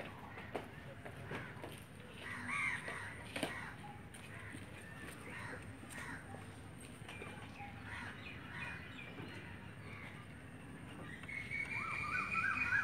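Outdoor parade-ground ambience with crows cawing and a few sharp footfalls or boot stamps early on. Near the end a high, shrill whistle starts, one held note with a rapid warble beneath it.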